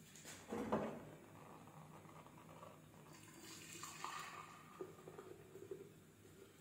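Two short knocks of cookware being handled in the first second, then hot milk tea poured from a saucepan through a strainer into a glass jug from about three seconds in, a faint splashing of liquid.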